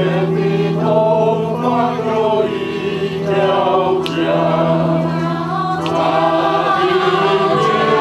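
Mixed choir of men's and women's voices singing together in harmony, sustained sung notes over a steady held low note.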